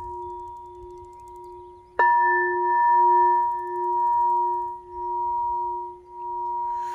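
Pink crystal singing bowl ringing with several steady tones at once, struck once with its mallet about two seconds in: a sharp strike, then a louder chord that swells and fades in a slow wobble as it rings on.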